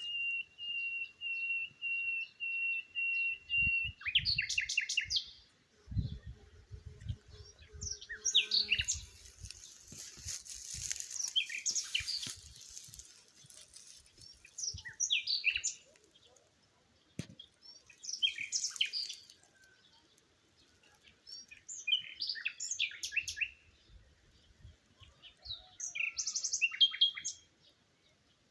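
Birds singing: a run of evenly repeated whistled notes, about three a second, for the first four seconds, then bursts of varied high chirps and trills every few seconds. Some low thumps come in about six to nine seconds in.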